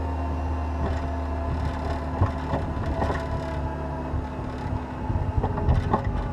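Caterpillar 236B skid steer loader's diesel engine running steadily under load while plowing snow, with scattered knocks and clatter that get heavier near the end.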